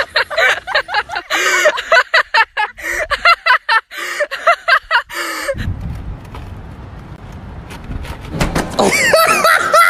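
A person's voice in quick, repeated outbursts, followed after about five and a half seconds by a steady low background rumble, with a voice returning near the end.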